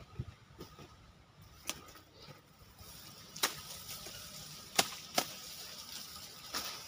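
Sickle chopping through elephant grass stalks: about five sharp cuts at irregular intervals, the first a couple of seconds in.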